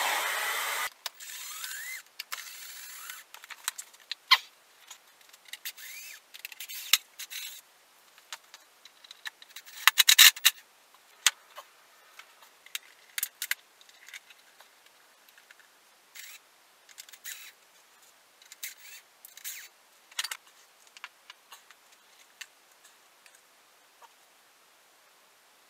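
Scattered clicks, taps and light clinks of screws, tools and plastic casing parts being handled while a Veteran Sherman electric unicycle is taken apart on a workbench, with a loud cluster about ten seconds in. A steady rushing noise cuts off about a second in.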